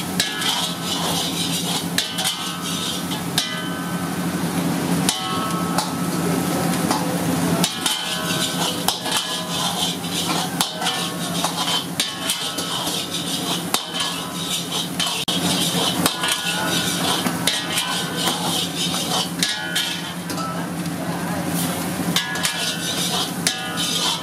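Kitchen clatter: repeated sharp knocks and metal clanks over a steady low hum.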